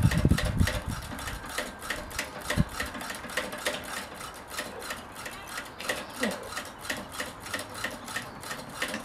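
Hand feed pump on a 5-inch gauge live-steam locomotive being worked, filling the boiler with water: a steady run of quick mechanical clicks, several a second.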